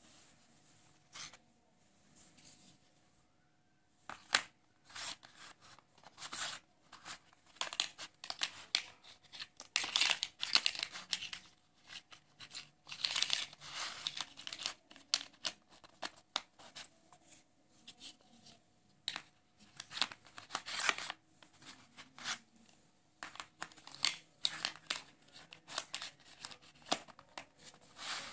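Hard plastic jigsaw puzzle pieces handled and fitted together on a sheet of paper: repeated clicks and clacks of plastic against plastic, mixed with scraping and rustling as pieces slide over the paper. The handling starts in earnest about four seconds in.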